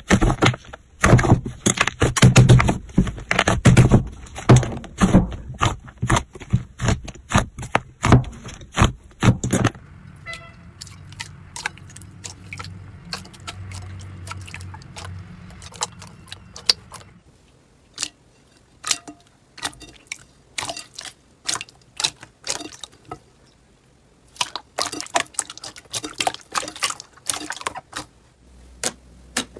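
Hands squeezing and stretching slime in a bowl: rapid wet clicks and pops of trapped air bursting. The clicking is dense for about the first ten seconds, then thins out over a faint low hum, and picks up again near the end.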